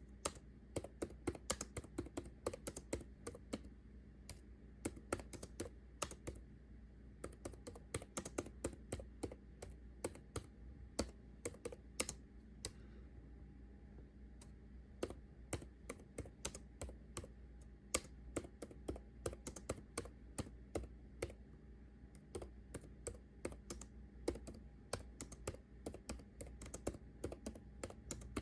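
Typing on a computer keyboard: fast runs of keystroke clicks broken by a few short pauses.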